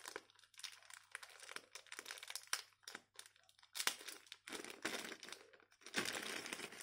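Thin clear plastic bag crinkling as it is handled: a run of faint, irregular crackles that gets busier in the last few seconds.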